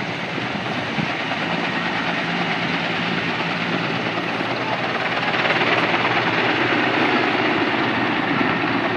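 Erickson S-64 Air-Crane (Skycrane) heavy-lift helicopter climbing away from the lake after a water pickup, its snorkel hose hanging below. Steady, loud rotor and turbine noise that swells about halfway through as it comes closer.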